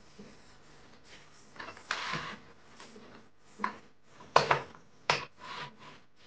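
Curtain being hung on a ceiling curtain rail: a few short clicks and scrapes of the hooks going onto the rail's runners, with rustles of the curtain fabric, the sharpest about four and a half and five seconds in.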